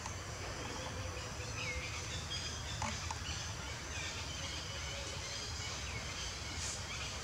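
Outdoor tree-canopy ambience: a steady low rumble and hiss, with faint high steady tones and a few short, high chirps spread through it.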